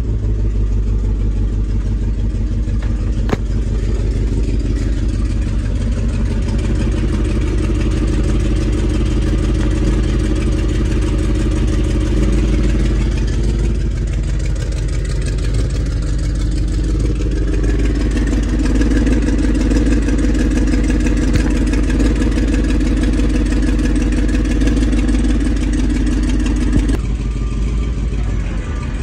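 Gasoline engine of a 1998 GMC C7500 dump truck running steadily with a deep, even note, which grows a little stronger about two-thirds through and eases again near the end.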